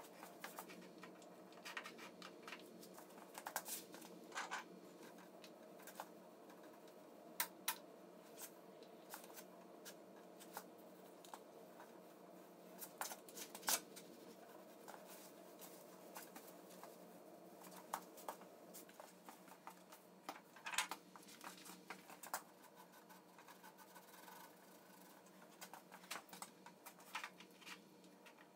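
Scattered light clicks, taps and scratchy scrapes of hand work and tool handling at a workbench, irregular and spread throughout, over a low steady room hum.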